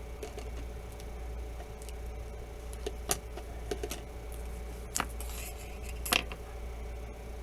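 A few small clicks and taps and a brief rustle from handling thin adhesive strips and small phone parts on a work surface, over a steady low hum.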